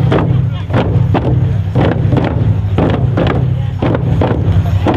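Drums struck in a steady beat, about two or three beats a second, with voices singing a ceremonial song.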